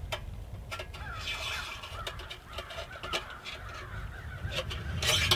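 Faint bird calls in the background, with a few light clicks and a rustle near the end as the steel pins and panels of a folding stove are handled.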